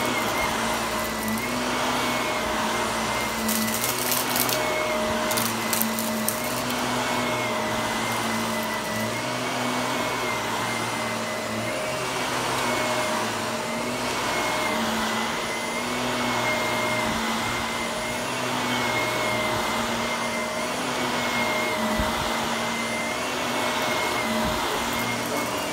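Shark Navigator upright vacuum cleaner running on carpet, its motor pitch rising and falling about every two seconds as it is pushed back and forth. A few brief crackles a few seconds in.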